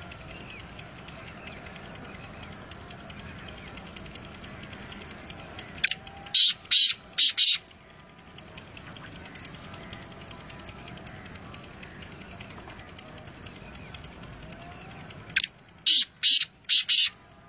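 Male black francolin calling twice, about ten seconds apart. Each call is a short first note followed by four loud, harsh notes in quick succession, over a faint steady background hiss.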